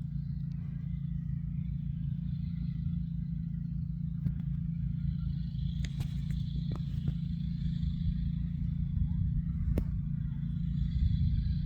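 Vehicle engines running slowly with a low, steady rumble that grows a little louder near the end, with a few faint clicks.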